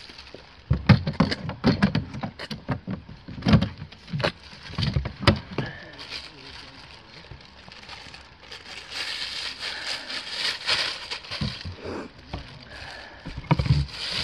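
Clattering knocks as a kayak cart's metal frame and wheels are handled, then the crinkling rustle of a clear plastic bag as the wheels are packed into it, and a few more knocks near the end.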